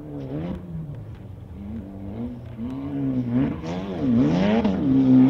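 Desert off-road race car's engine revving up and down again and again as it is driven hard over rough ground, growing louder as it comes closer and loudest near the end.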